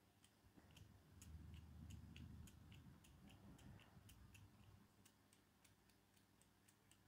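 Near silence with faint, even ticking, about three ticks a second. A faint rustle of the brass clock movement being handled comes about one to two and a half seconds in.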